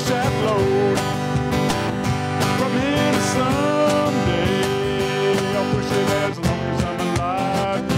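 Live acoustic guitar strumming over a cajon beat, with a male voice singing long, gliding notes over it.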